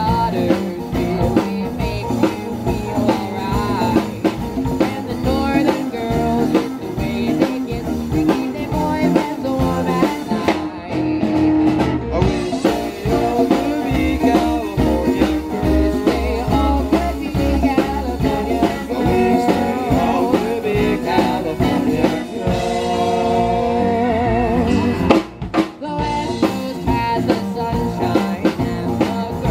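Live rock band playing a soft-rock number on electric guitar, acoustic guitar, keyboard and drum kit, with a short break in the music about 25 seconds in.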